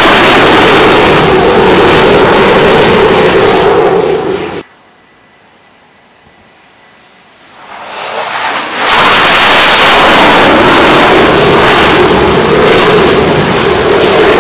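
Navy jet aircraft engines running at high power on a carrier flight deck during night launch operations: a loud, steady roar that cuts off abruptly about four and a half seconds in, then, after a few seconds of faint sound, builds back up over about a second to the same loud roar.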